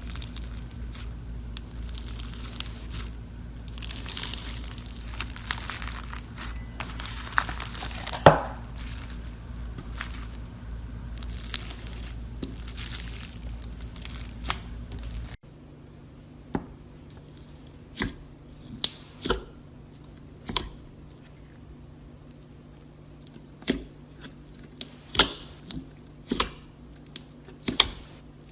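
Close-miked ASMR crunching and crackling of a crisp material being pressed and broken by hand: dense crinkly crackling at first, then, after an abrupt cut about halfway through, separate sharp snaps with short pauses between them.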